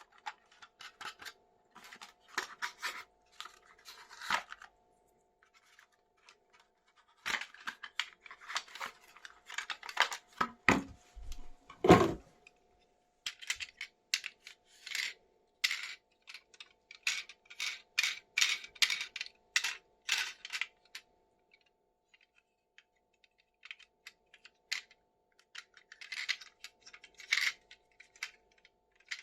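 Unboxing a plastic toy vehicle: packaging and plastic parts crinkling, tearing and clicking in short clusters, with one louder knock about twelve seconds in. A faint steady hum runs underneath.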